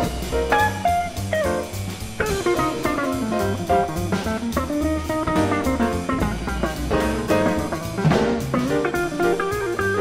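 Jazz combo playing: an electric guitar picks a running single-note line over bass notes and a drum kit's cymbals and drums.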